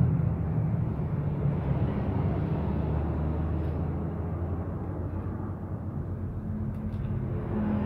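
Steady low mechanical drone of an engine running nearby, with a couple of faint light clicks.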